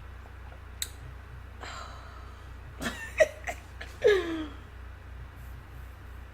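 A person drinking water: a few clicks and gulping sounds, then a short satisfied "ahh" that falls in pitch, the refreshed exhale after a drink.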